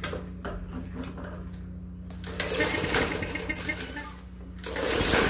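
A lawn mower's small engine is pull-started twice, about two and a half seconds apart, each pull a rapid clattering lasting about a second, over a steady low hum. The owner suspects a fouled carburetor is keeping it from running.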